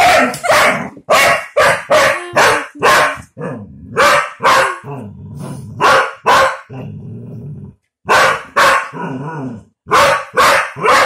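Collie barking over and over in short, loud barks, some coming two or three a second, with stretches of low growling between them: excited play barking at a toy.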